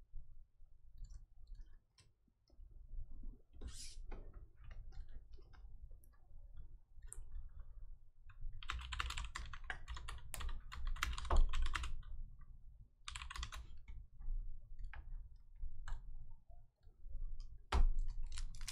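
Typing on a computer keyboard in short runs of quick key clicks, busiest around the middle, with a single thump near the end.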